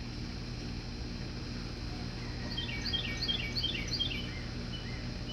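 A songbird singing a quick run of short, downward-sliding high notes, starting about two and a half seconds in, over a steady low background hum.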